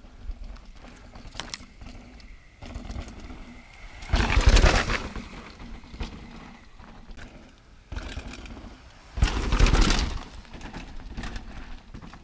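Mountain bike rolling down a loose dirt trail: tyres crunching on the dirt, with scattered rattles and clicks from the bike. Two loud rushes of noise come about four seconds in and again about nine seconds in.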